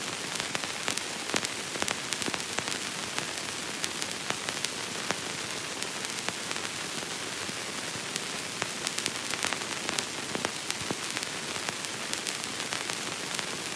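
Crackle of an old, worn recording: a steady hiss dotted with many irregular small clicks and pops.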